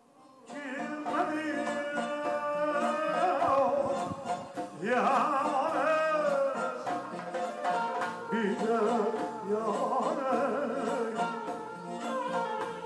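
A shashmaqom song performed by Bukharan Jewish musicians: a voice singing long, wavering, ornamented lines over accompanying instruments, starting about half a second in.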